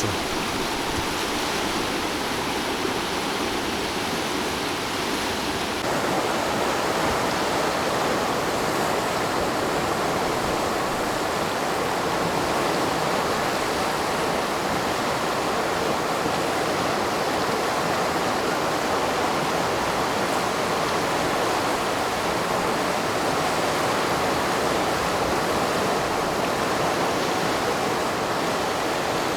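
Fast mountain river, the Katun, rushing and churning over its bed in a steady, unbroken roar of white water, a little louder from about six seconds in.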